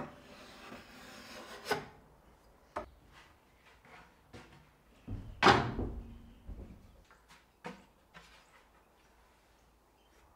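Rubbery glue squeeze-out being scraped from the inside corner of a plywood cabinet, a rasping scrape for the first couple of seconds. Then plywood panels are handled, with scattered wooden knocks; the loudest, a heavy knock of a board, comes about five and a half seconds in.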